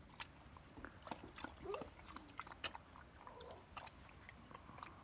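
Pig chewing in its pen: faint, irregular soft clicks and munching sounds.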